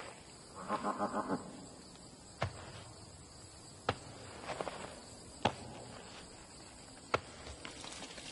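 A wild goat's short stuttering call of about five quick pulses about a second in, with a fainter one near four and a half seconds. Single sharp knocks come roughly every second and a half.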